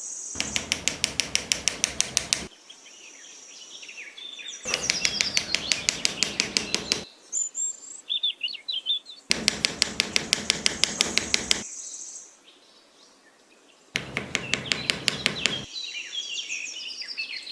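Rapid, even tapping, about ten taps a second, in four bursts of about two seconds each, with birds chirping in the gaps between them.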